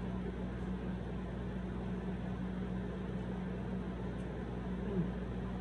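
Steady low hum and hiss of background noise, with one short falling low tone about five seconds in.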